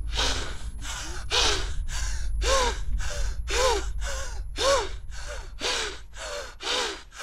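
A person breathing hard and fast, panting in quick, even gasps, about two to three breaths a second, many with a short voiced catch.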